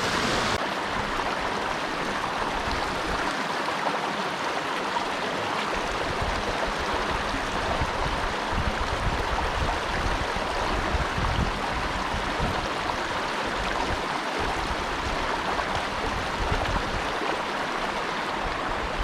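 Steady rush of a small stream's flowing water, with an uneven low rumble underneath.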